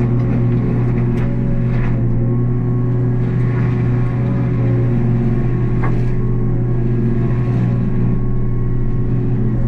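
Takeuchi TB285 excavator's diesel engine running steadily under load, powering a Blue Diamond severe-duty rotary mower cutting through brush, with a few sharp clicks.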